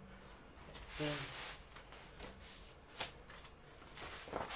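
Hard breathing of a man doing crunches, with a loud breath out about a second in and shorter breath sounds later.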